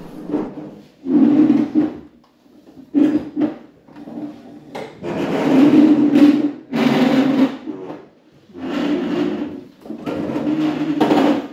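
Several scraping and rubbing noises, each lasting up to about a second with short gaps between, from people getting up and moving chairs and things about.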